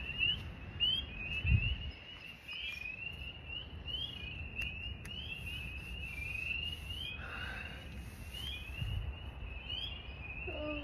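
An outdoor chorus of many short, rising high chirps repeating without pause, over a low rumble.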